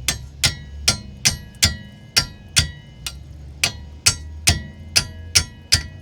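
A hammer tapping lightly and steadily on a steel wrench, about fourteen strikes at two or three a second, each with a short metallic ring. It is knocking loose a 13 mm brake caliper bolt that the socket can't reach.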